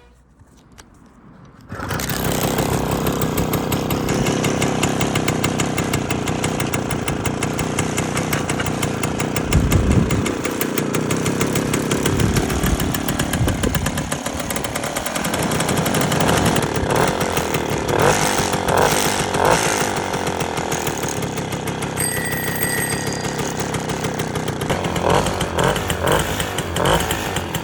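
Stadion S11 moped's small two-stroke engine catching about two seconds in and running, with its revs rising and falling.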